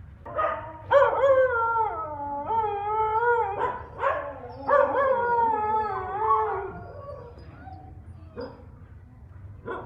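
Pet dog howling in several long, wavering notes, sliding up and down in pitch, for about six seconds, then falling quiet.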